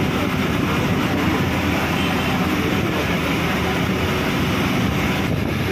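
Steady engine, tyre and wind noise of a moving bus, heard through an open window as it drives along a winding hill road.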